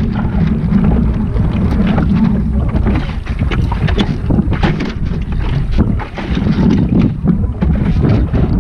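Wind buffeting the microphone of a camera on a small sailing dinghy under way, with a dense low rumble and frequent irregular splashes of water slapping against the hull.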